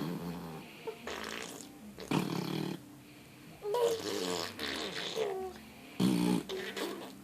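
Mouth fart sounds (blown raspberries) in several short bursts, imitating farts, with a baby's voice rising and falling between some of them.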